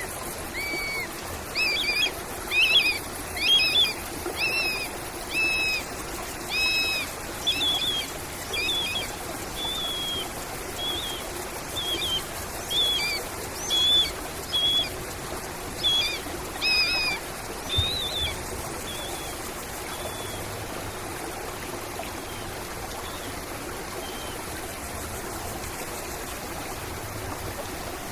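A songbird singing a run of short whistled notes, repeated about once a second and fading out after roughly twenty seconds, over a steady trickle of running water.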